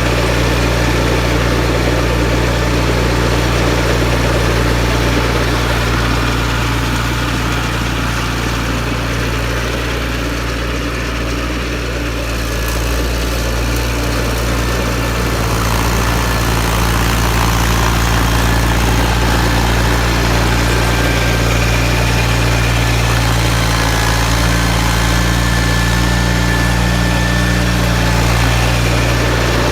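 John Deere 318 garden tractor's engine running steadily, dipping slightly in loudness about ten seconds in and then picking back up.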